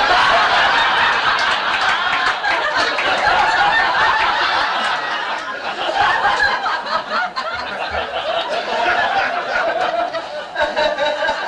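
An audience laughing hard, many voices at once, the laughter thinning a little near the end.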